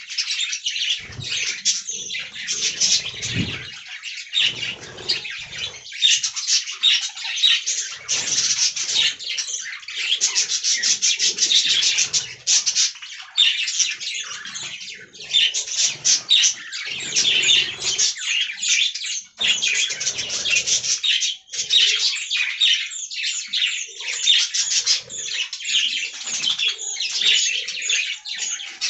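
Budgerigars chattering and warbling: a continuous fast stream of high chirps, clicks and squawks.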